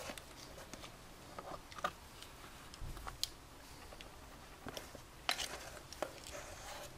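Faint, scattered scrapes and taps of a spatula against a steel mixing bowl as thick cake batter is scraped out into a paper-lined pan, with one longer scrape about five seconds in.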